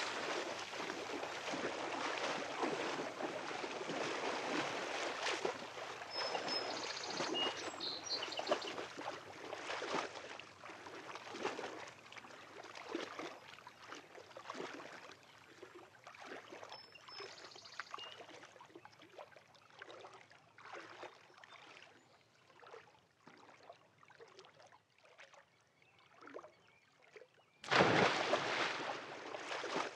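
Swimming-pool water sloshing and lapping against the pool wall, gradually settling and dying away to near silence. Near the end a sudden louder rush of noise comes in.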